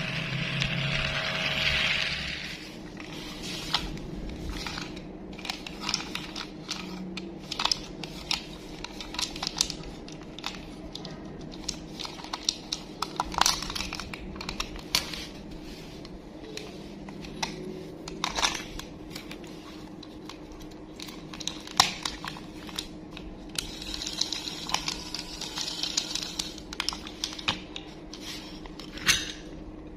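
Hands handling toy packaging: many irregular sharp plastic clicks and taps with some crinkling. A steady whirring noise stops about two seconds in.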